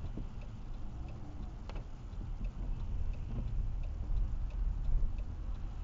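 Car's turn signal clicking steadily, about two to three clicks a second, over the low rumble of road and engine noise in the cabin.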